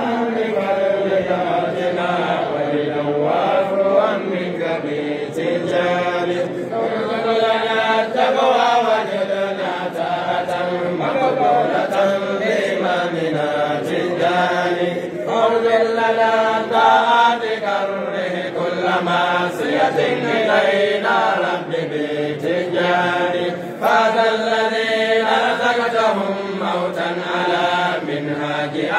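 A crowd of men chanting together in unison, a steady religious chant in repeating, rising and falling phrases.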